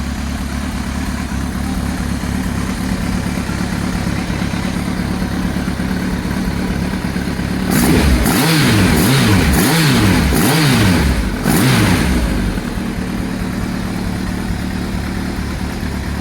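Motorcycle engine idling steadily, then blipped through a quick series of revs, each rising and falling, for about four seconds from about eight seconds in, before settling back to idle. The bike has just had a major service.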